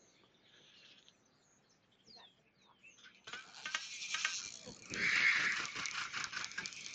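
Faint bird chirps, then about three seconds in a fast, dense clicking rattle starts and carries on, loudest about five seconds in: a fishing reel being wound in while a lure is worked.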